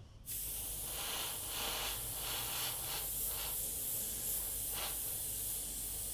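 Airbrush spraying water-based paint highlights onto canvas: a hiss of air and paint that starts suddenly about a third of a second in and swells in short surges over and over.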